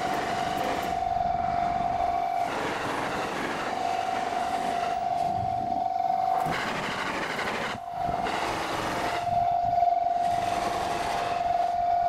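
Japanese level-crossing warning bell ringing on and on as one steady tone, with the rushing rumble of passing commuter trains swelling and fading over it, sped up ten times.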